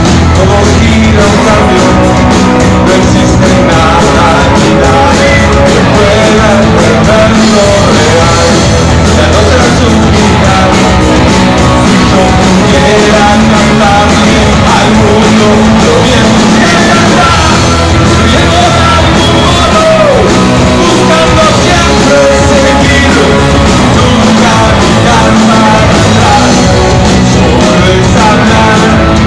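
Rock band playing live and loud: a singer's vocals over electric guitars and a full band.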